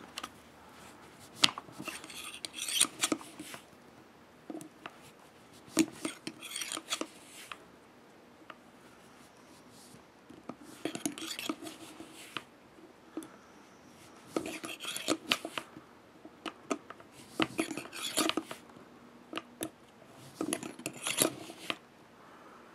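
Metal cleaning rod with a cloth patch being pushed in and out of a revolver's cylinder chambers: metal scraping and clicking against the cylinder. It comes in about six bursts a few seconds apart, with quiet between.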